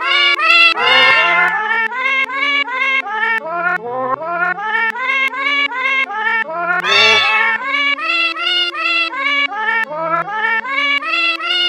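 A melody played with recorded cat meows pitch-shifted to the notes: short meows at about three a second over a lower bass line, with a longer, brighter meow about a second in and another about seven seconds in.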